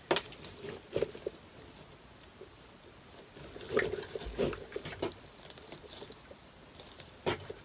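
Hands handling a red ball ornament and the flocked artificial pine branches of a wreath: scattered rustling and short clicks, busiest around the middle, as the ornament is pressed in to check that its glue is holding.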